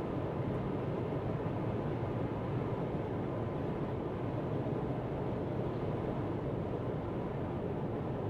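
Steady road and engine noise inside a car's cabin, picked up by a dashcam, as the car cruises at motorway speed.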